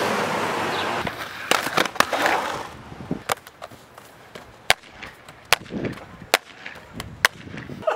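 Inline skate wheels rolling on concrete, fading out after about two seconds. Then a series of sharp, irregular clacks as the hard skate boots and frames knock against concrete ledges.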